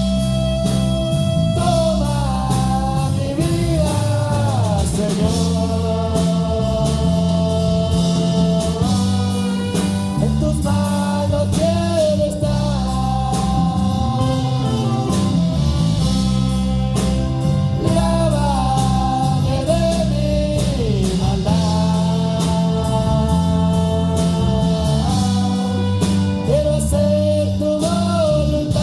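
Live worship band music: a gliding melody line over steady bass notes and drums keeping an even beat.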